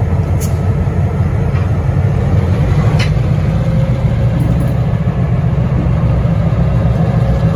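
Diesel switcher locomotives running at low throttle as the coupled consist rolls slowly past, a steady low engine rumble. A brief sharp click about three seconds in.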